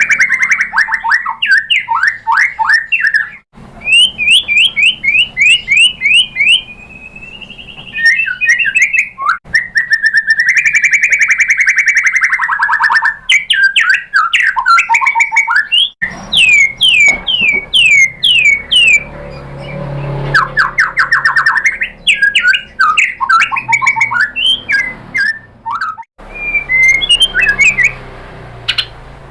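White-rumped shama singing a loud, varied song: long held whistles and fast runs of repeated sweeping notes, broken by a few abrupt cuts between passages.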